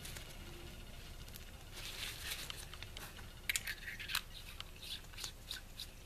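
Faint handling noise of a sub-ohm vape tank being screwed back together in gloved hands over a paper towel: a scatter of small metallic clicks and scrapes from the threads, with paper rustling.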